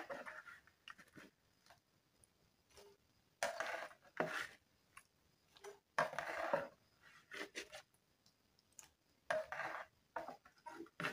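Metal slotted spoon scooping small wet fish out of a plastic bowl of soaking water: a few irregular scrapes and splashes with light clinks, separated by pauses.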